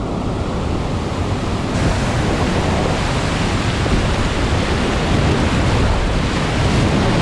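Steady rushing of whitewater pouring down a river slide rapid at high water. About two seconds in, the sound turns brighter and hissier as it comes from right on the kayak running the rapid.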